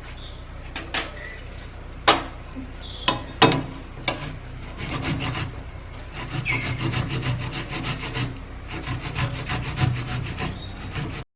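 A tomato being grated on a metal grater. There are a few separate knocks at first, then rapid repeated rasping strokes from about four and a half seconds in, and the sound cuts off abruptly near the end.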